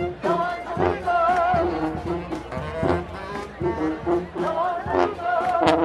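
Brass marching band playing: horns carry a wavering melody over a bass line, with sharp drum hits throughout.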